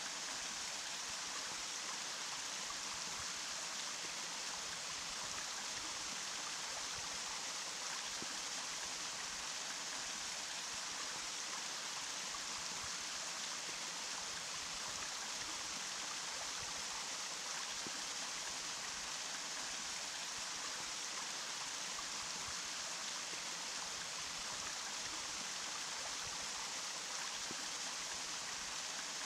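Running water rushing steadily and evenly, a bright hissing flow with little deep rumble.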